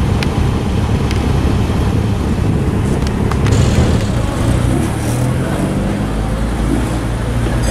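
Motor traffic: car engines running in a steady low rumble, with a few faint clicks.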